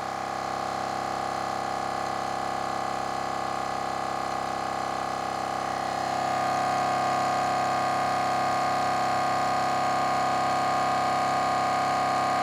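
Milwaukee M18 Fuel 2840-20 brushless cordless air compressor running steadily as it pumps the tank up past 120 PSI toward its 135 PSI cut-off. It makes an even, fairly quiet hum with a strong steady tone, a little louder about halfway through.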